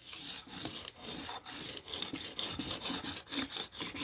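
Knife blade being stroked back and forth across the fine, smooth side of a whetstone, a gritty scraping repeated in quick strokes.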